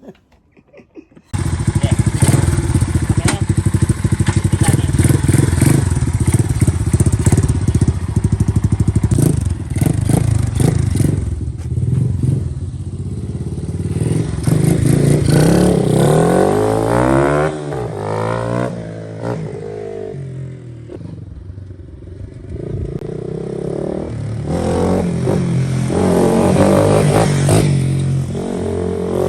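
Motorcycle engine running, starting abruptly about a second in, its pitch rising and falling as it is revved or accelerates through the middle, easing off briefly and then picking up again near the end.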